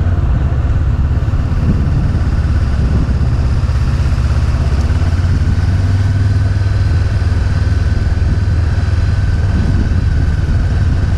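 Motorcycle engine running steadily at a low, even cruising speed, heard from the rider's position, with road and wind noise over it.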